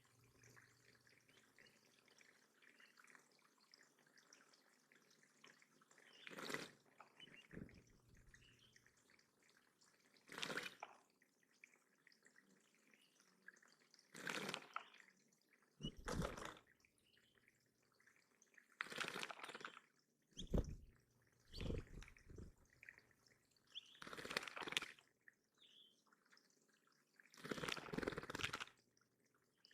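Water in a backyard bird pond splashing in short, irregular bursts, about a dozen, each under a second.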